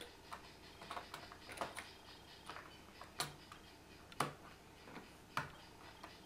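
Light, irregular clicks and taps, roughly one a second, of small metal precision shims and spacers being handled and slipped onto the bolts of a carriage plate.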